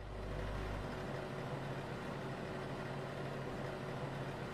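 Countertop electric oven running with its door shut: a steady low hum with a faint hiss.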